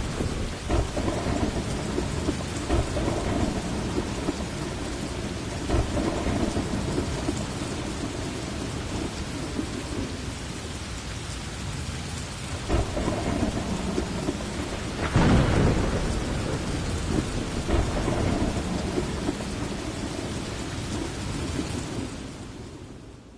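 Heavy rain falling steadily through a thunderstorm, with thunder rumbling low underneath. A louder peal of thunder comes about fifteen seconds in, and the sound fades out near the end.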